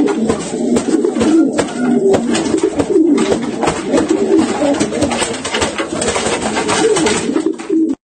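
Many pigeons cooing at once, a continuous warbling chorus, with repeated short flaps of wings as birds scuffle. It cuts off suddenly at the end.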